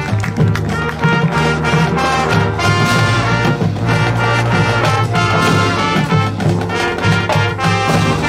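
High school marching band playing live: a brass section sounding sustained chords and lines over marching and front-ensemble percussion, with drum hits keeping a steady beat.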